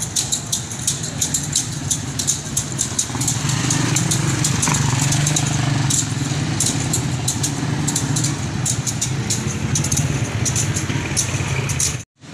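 Motorcycle tricycle engines running as they pass, a steady low drone that swells a few seconds in. Over it comes an irregular clatter of sharp clacks, a few a second, from the bamboo-tipped flails (salibatbat) of penitents whipping their backs.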